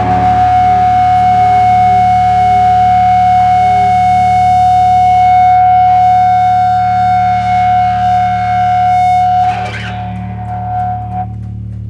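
Distorted electric guitar drone through effects, one high note held steady over a low hum; the drone drops about nine and a half seconds in and cuts off shortly after, leaving only a steady low amplifier hum.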